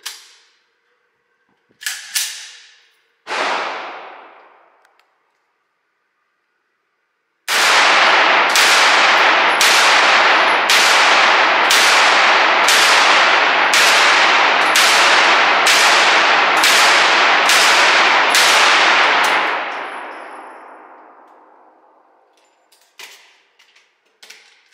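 9mm shots from a PSA PX9 pistol fired semi-automatically in an echoing indoor range. Two single shots come first; then, about 7.5 s in, a steady string of about fifteen shots follows at roughly one every 0.7 s, their echoes running together and fading out after the last. Small metallic handling clicks come near the end.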